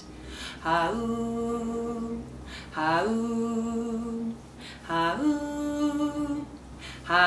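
A woman singing a wordless 'ha-oom' lullaby refrain a cappella. Three held notes come about two seconds apart, each sliding up into its pitch, the third higher than the first two, and a fourth begins right at the end.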